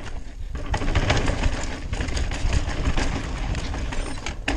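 Mountain bike rattling and rushing as it rolls fast over a rough trail, a dense clatter of small knocks that builds up in the first half second.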